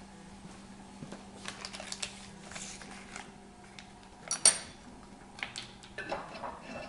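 Kitchen utensils and a small saucepan being handled: scattered clicks and clatter, with one sharp ringing metal clink about four and a half seconds in, over a faint steady hum.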